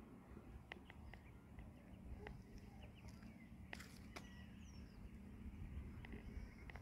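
Faint outdoor ambience: scattered short bird chirps and calls over a low, steady rumble.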